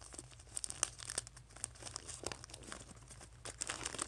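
White wrapping paper crinkling and tearing as a small gift is unwrapped by hand: a run of quick, sharp crackles.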